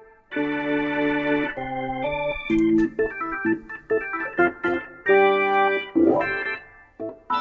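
A 1976 WLM Trip organ, a Finnish clone of the Hammond, played through an Allsound Leslie speaker: held chords alternating with short stabbed notes.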